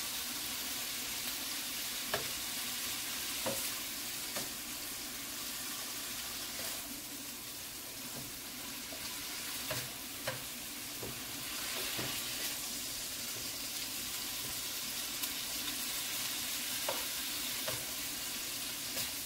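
Thin-sliced steak sizzling in a frying pan on medium-high heat while a spatula stirs it, with occasional light clicks and scrapes of the spatula against the pan.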